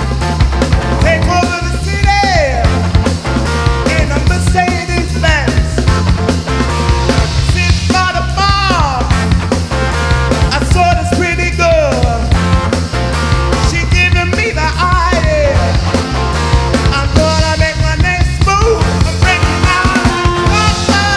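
Live band playing an up-tempo soul stomper with a steady driving beat in the bass and drums. A lead melody line slides up and down in pitch over it.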